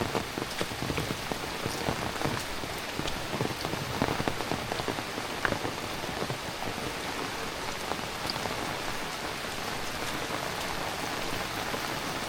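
Heavy rain falling steadily, with many separate drops ticking sharply close by, more of them in the first half.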